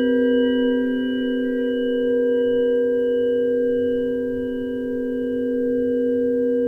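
A sustained tone sound effect: several steady pure tones sounding together as one held chord, a low tone under a close cluster of higher ones, swelling and fading slowly in loudness.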